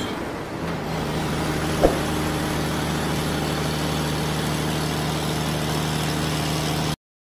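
A steady, engine-like motor hum, with a single click about two seconds in. It cuts off abruptly near the end.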